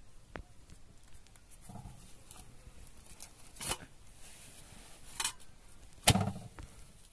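Thin kalaneh (lavash) dough sheets being folded and handled by hand on a wooden board: soft rustling with a few sharp pats. The loudest slap comes about six seconds in as the bread is laid onto the sadj griddle.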